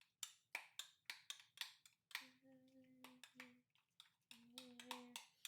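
A utensil clicking and tapping against a bowl while overripe bananas are mashed, quick sharp clicks about four or five a second at first, then sparser. A voice hums two steady held notes over the later clicks.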